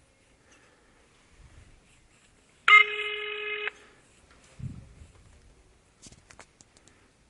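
Dutch telephone ringback tone heard on the calling line: one steady beep of about a second, about three seconds in, meaning the called phone is ringing and not yet answered. A faint low thump and a few soft clicks follow.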